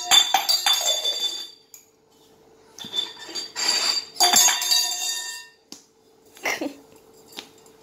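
Steel tumbler clinking and ringing against a stone floor as a baby knocks it about: a clatter of ringing clinks in the first second or so, another run about three to five seconds in, then a few lighter single clinks near the end.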